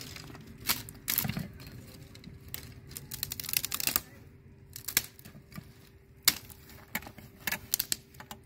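Irregular clinks, taps and scrapes of a metal cooking utensil against a pot of wheat porridge, the sharpest knock a little after six seconds in, over a faint steady hum.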